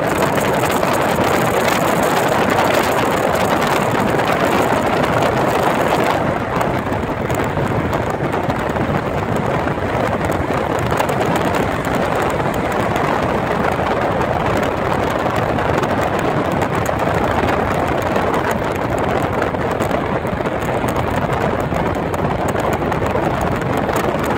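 Steady tyre and wind noise of a car travelling at highway speed. The high hiss eases a little about six seconds in.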